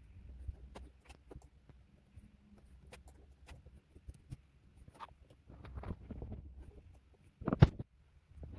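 Faint scratching and small clicks of desk work, like a pen on paper and papers being handled, with one louder knock about seven and a half seconds in.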